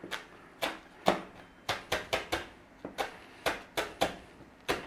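Chef's knife slicing through kaffir lime leaves on a plastic cutting board: about fourteen short, sharp knocks of the blade on the board at an uneven pace, roughly three a second.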